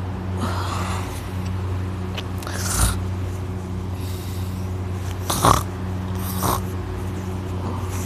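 A man snoring heavily in deep sleep: noisy, hissing breaths with sharper snorts about three seconds in and again around five and a half seconds. A steady low hum runs underneath.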